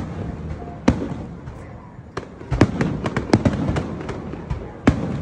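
Aerial fireworks shells bursting: a sharp bang about a second in, a quick run of bangs and crackles in the middle, and another sharp bang near the end, with a low rumble between them.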